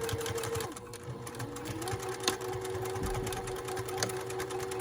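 Juki TL-18QVP sewing machine running steadily, stitching a zipper into a hoodie: a rapid needle clatter over a motor whine that drops a little in pitch about two seconds in as the machine slows slightly.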